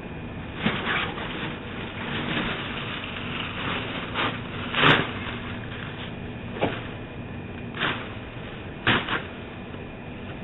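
Steady outdoor hiss with a handful of short knocks and scrapes scattered through it, the loudest about halfway through.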